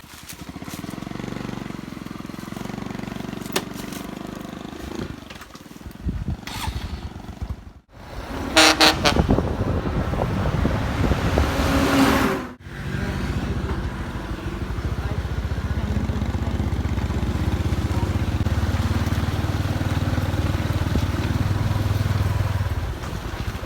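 A small engine running steadily with a low hum, cut off abruptly about eight seconds in and again about twelve and a half seconds in.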